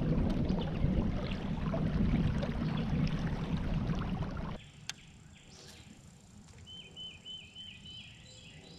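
Loud rough rumbling noise that cuts off abruptly a little past halfway. Then quieter open-air ambience, with a bird calling a quick run of repeated chirps near the end.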